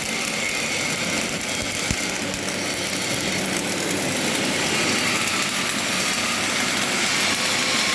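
Flux-cored arc welding by a KOWELD CS71 welding carriage laying a long fillet weld: a steady hissing arc with no break.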